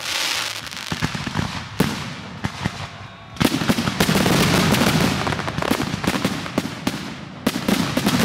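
Aerial firework shells bursting: a string of sharp bangs that thickens about three seconds in into a dense, continuous barrage of explosions, then breaks back into separate reports near the end.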